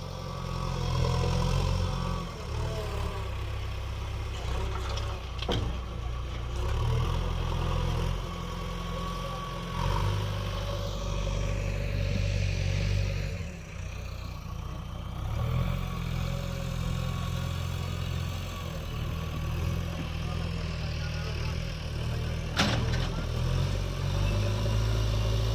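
Heavy diesel engine running, its level rising and falling as it works. There is a sharp knock about five seconds in and another near the end.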